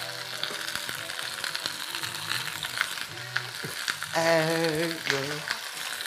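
Chicken pieces sizzling as they brown in hot olive oil in an enamelled cast-iron pot, a dense crackle throughout. About four seconds in, a man's voice sings briefly over it.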